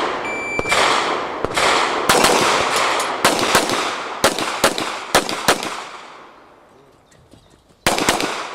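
IPSC shot-timer start beep, then a fast string of handgun shots, many fired in quick pairs, each with an echoing tail. The shots pause for over a second before another rapid cluster near the end.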